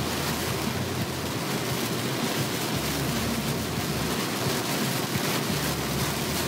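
Torrential rain on a car driving on a flooded motorway, heard from inside the cabin: a steady wash of rain and tyre spray on the body and windscreen over a low hum of engine and road noise.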